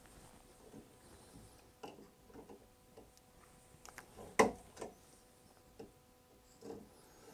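Needle-nose pliers gripping and twisting a broken steel screw out of an oak chair rocker: scattered small clicks and creaks of metal on the screw and wood, the sharpest a pair of clicks about four and a half seconds in.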